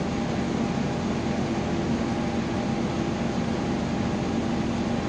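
Crane engine running steadily while it holds a lifted steel tank ring in the air, a constant hum without speech.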